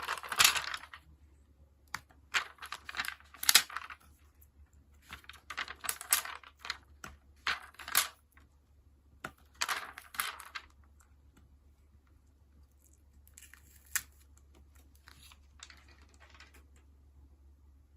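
Close-up paper and sticker handling: crisp rustles, small taps and clicks in short bursts every few seconds, fainter and sparser in the last third.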